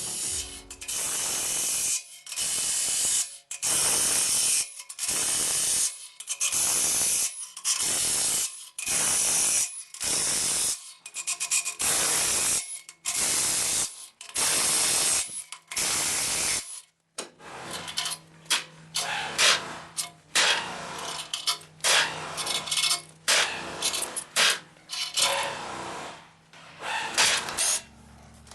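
About a dozen hissing blasts from a spray gun cleaning a diesel engine block, each about a second long with short pauses between them. From about two-thirds of the way in they give way to irregular clinks, knocks and scraping of tools on metal.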